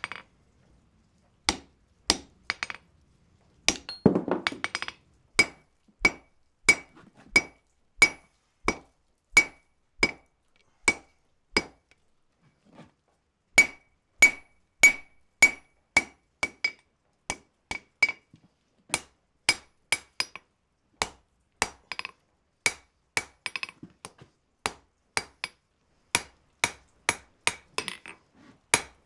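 Blacksmith's hand hammer forging a hot wrought-iron bar on an anvil: steady blows about one and a half a second, many with a high ring. There is a short pause about twelve seconds in, and a brief rattle of quick light hits near the start.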